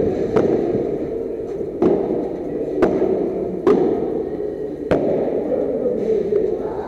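Padel rally: a padel ball struck back and forth with solid paddles and bouncing on the court, about five sharp pops roughly a second apart over a steady background din.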